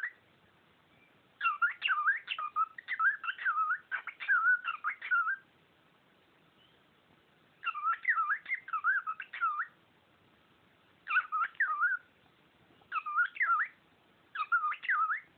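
Cockatiel whistling and warbling in about five bursts of quick up-and-down sliding notes, the first burst the longest, with short pauses between them.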